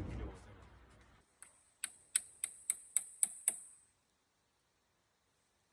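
A run of about seven light, quick taps on wood, roughly four a second, then nothing.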